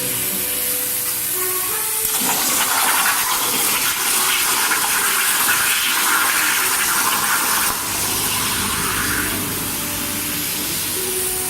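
CNC plasma cutting machine's torch cutting metal: a steady, loud hiss of the plasma arc and air. It shifts in tone about two seconds in and again near eight seconds.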